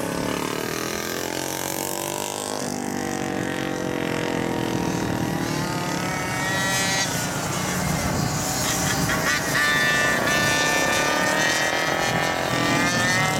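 Small two-stroke racing engines of GoPed stand-up scooters, several at once, revving up and down through the corners; a high, buzzing pitch that falls and rises again as they brake and accelerate.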